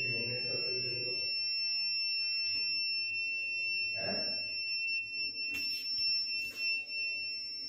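Kent Grand RO water purifier's filter-change alarm sounding a steady, high-pitched beep tone, a few clicks over it in the second half. The alarm is set to go off after a certain volume of water has been filtered.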